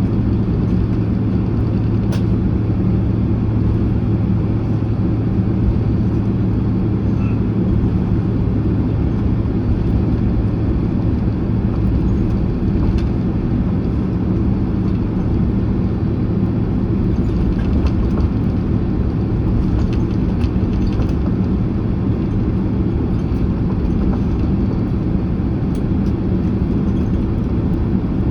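Cabin noise of a Boeing 767-300ER taxiing after landing: a steady low rumble with a constant low hum from the engines at taxi power, and a few faint clicks.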